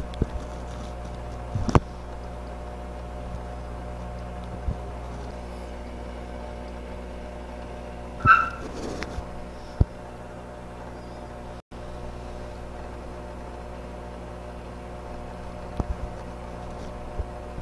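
Steady low electric hum of a small water pump running in the test tank, broken by a few light clicks and knocks and a short high squeak about eight seconds in.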